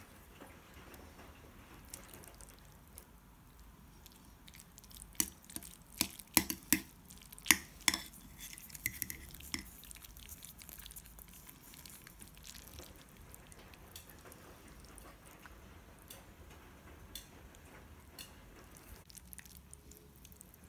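Metal fork clinking against a ceramic pasta bowl while twirling linguine: a run of sharp clinks in the middle, with faint room tone before and after.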